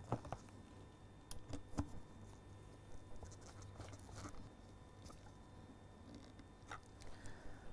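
Faint, scattered clicks and taps of a screwdriver driving small screws into the plastic base of a Hozelock 640 air pump, with hands handling the casing.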